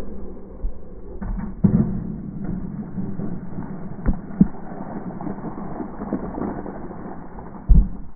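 A water balloon bouncing down wooden stairs and bursting, with water splashing across the steps. A continuous dull, muffled splashing noise is broken by several heavy thumps, the loudest near the end.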